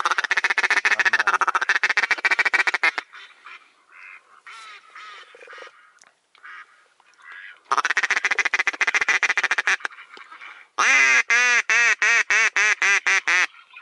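Mallard duck call (a hunter's reed call) blown close by in three runs of quacks to draw in circling ducks: a fast chattering run at the start, another about eight seconds in, then a louder series of about a dozen evenly spaced quacks near the end.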